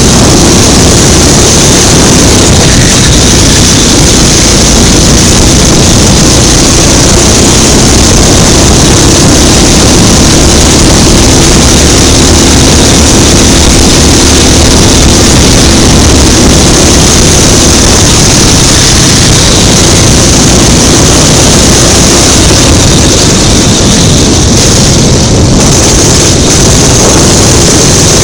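Go-kart engine running at racing speed, heard close from the kart's onboard camera under a steady rush of noise, loud throughout.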